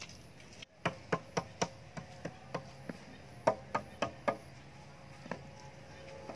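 Sharp wooden knocks in quick runs of about four a second: a hand tool striking the wooden poles.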